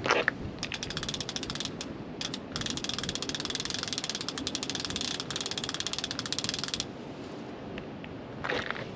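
Fishing reel being wound, a fast, even ratcheting click, taking up slack line after a slackline bite. The winding starts about half a second in, pauses briefly around two seconds, and stops about seven seconds in.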